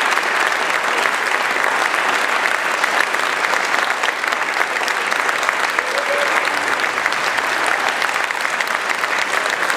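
Audience applauding steadily: dense clapping from a large crowd.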